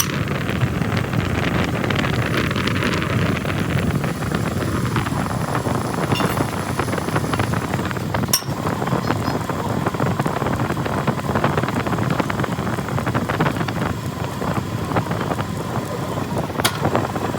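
Steady workshop machine noise with a crackling texture, and two sharp clicks, one about halfway through and one near the end.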